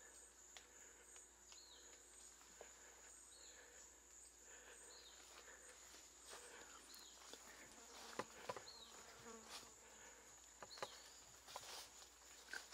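Faint rainforest insect drone, one steady high-pitched tone, with a short chirp repeating about once a second and scattered faint clicks and crackles, more of them in the second half.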